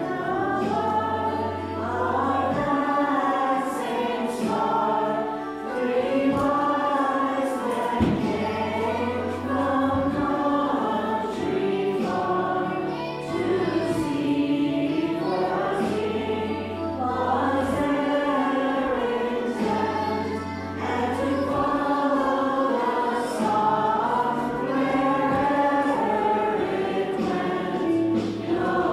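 Choir singing a Christmas carol with steady, sustained low accompaniment notes underneath.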